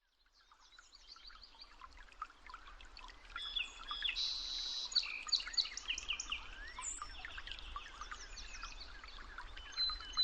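A chorus of several songbirds chirping and trilling together, fading in from silence over the first few seconds.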